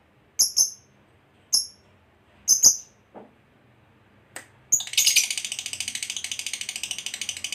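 Lovebird giving a series of sharp, short chirps. About five seconds in it breaks into a long, rapid chattering trill, the "ngekek" call prized in fighter lovebirds.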